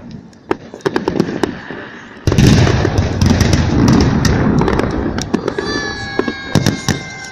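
Victory Day salute fireworks: scattered sharp pops and cracks, then about two seconds in a sudden loud barrage of overlapping bangs and rumble that keeps going. A held high tone sounds over it near the end.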